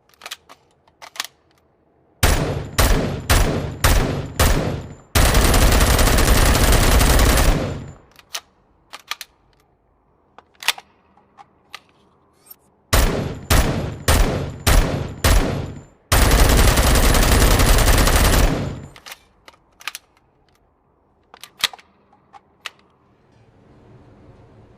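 Heckler & Koch G3 7.62×51mm battle rifle firing in the same pattern twice: five single shots about two-thirds of a second apart, then a full-automatic burst lasting about three seconds. Scattered light clicks come between the two strings and after the second one.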